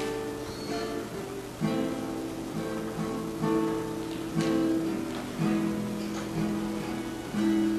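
Acoustic guitar played slowly, a new plucked note or chord about once a second, each left to ring over the next.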